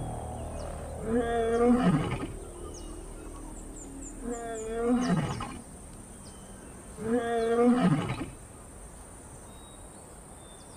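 Lioness roaring: three long calls about three seconds apart, each dropping in pitch as it ends.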